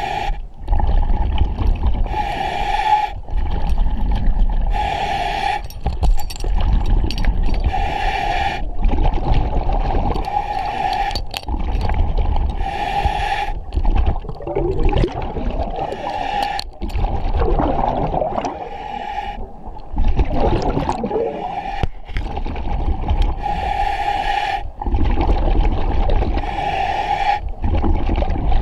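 An underwater diver breathing on a regulator: a hiss on each inhalation alternates with the low rumble and gurgle of exhaled bubbles, repeating every two and a half to three seconds over a steady hum. The rhythm turns irregular midway.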